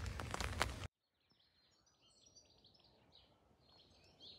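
About a second of rustling and fabric handling that cuts off abruptly, followed by faint morning birdsong: many small birds chirping in short overlapping calls.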